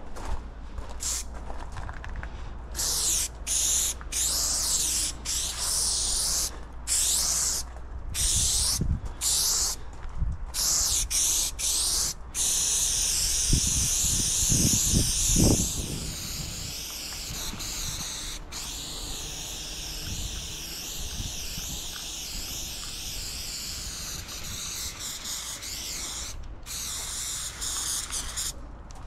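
Aerosol spray paint can hissing as paint is sprayed onto the side of a train carriage: short bursts with breaks between them for the first twelve seconds or so, then one long unbroken spray whose pitch wavers, stopping near the end. A few dull thumps come around the middle.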